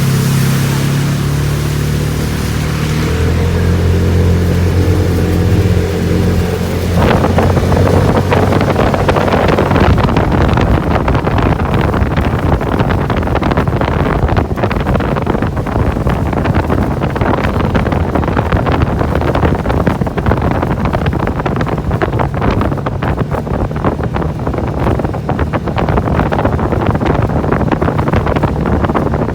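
A car driving through floodwater. A steady low hum for the first several seconds, then, about seven seconds in, a sudden switch to a loud, continuous rush and splatter of water hitting the car.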